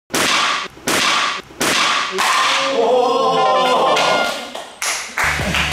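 A fist breaking a stack of five wooden boards: four sharp cracks about two-thirds of a second apart, followed by a short choir-like sung flourish. Background music comes in near the end.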